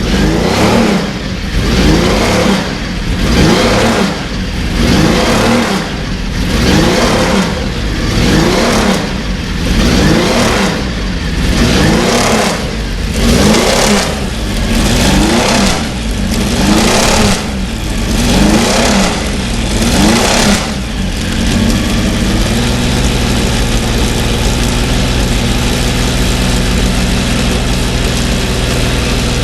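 Porsche 917's air-cooled flat-twelve racing engine being blipped repeatedly, rising and falling in revs roughly every two seconds, then settling to a steady idle about 21 seconds in.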